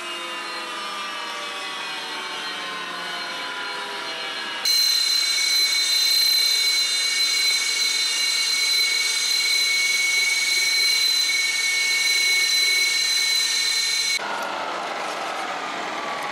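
Sukhoi Su-30SM's AL-31FP turbofan engines whining, first with a whine that falls slowly in pitch. About five seconds in, an abrupt cut brings a louder, steady high-pitched turbine whine, which cuts back to a falling whine near the end.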